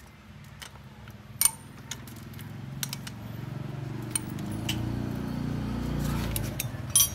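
Scattered metal clinks and ticks of a T-handle socket wrench working the cylinder head nuts of a 1996 Thai Honda Dream engine. A low droning hum swells in the background from about two seconds in and eases off near the end.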